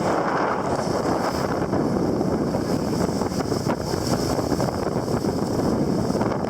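Steady wind blowing across the microphone and water rushing past the hull of a Mumm 36 sailboat under way.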